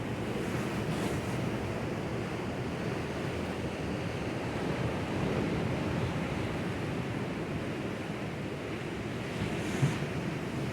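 Sea waves washing over rocks: a steady rush of surf, with one brief thump near the end.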